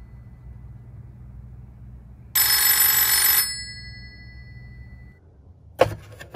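A rotary desk telephone's bell rings once for about a second, and the ring fades out after it. Near the end there is a sharp clunk as the handset is lifted off the cradle.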